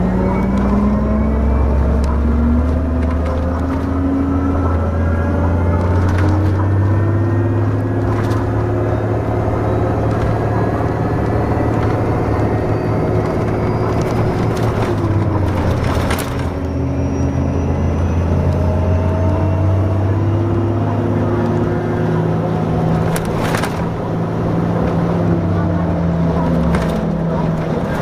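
Orion VII hybrid-electric city bus running: a steady low engine hum under a drive whine that rises in pitch as the bus gathers speed, holds, falls about halfway through as it slows, then rises again. A few sharp knocks or rattles are heard along the way.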